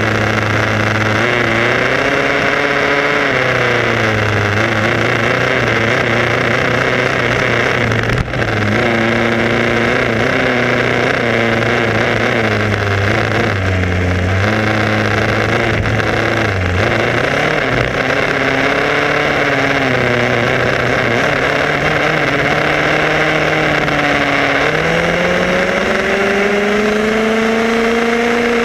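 Onboard sound of a Tamiya radio-controlled buggy driving on an asphalt road: a steady hiss with a pitched whine that rises and falls with its speed, climbing steadily over the last few seconds as it accelerates.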